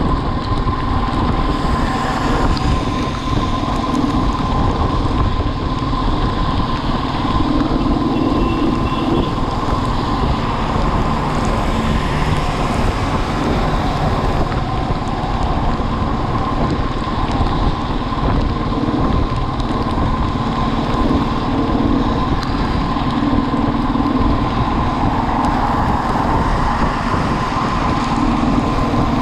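Motorcycle running at a steady riding speed, with wind rushing over the microphone and a steady whine.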